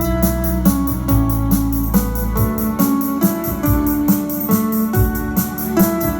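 Instrumental music: held keyboard-like notes over a steady beat.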